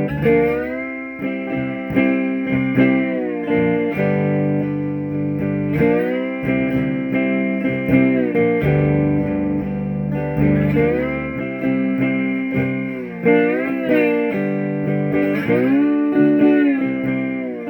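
Blues phrases played through a 1968 Alamo Paragon amplifier, a San Antonio-made tube amp: held notes and chords that slide and bend in pitch.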